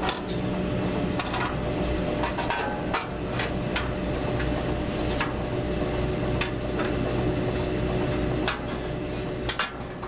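Irregular knocks and clanks of hands and tools on a steel framework, over a steady low machine hum that drops away about eight and a half seconds in.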